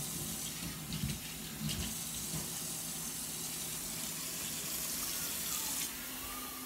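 Kitchen tap running steadily into the sink as a baby bottle is rinsed, with a couple of light knocks about a second in.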